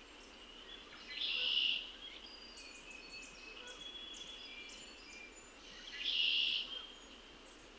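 Wild songbirds singing: two loud buzzy songs about five seconds apart, with fainter thin whistles and short high chips from other birds in between over a low outdoor hiss.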